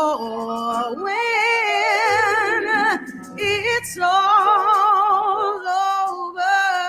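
A woman singing a slow gospel song, holding long notes with a wide vibrato and breaking briefly between phrases.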